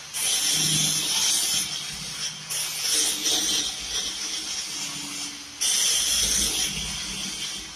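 Three bursts of harsh hissing from metalwork on a stainless steel railing joint. Each burst starts suddenly and lasts one and a half to two and a half seconds, with a short lull between.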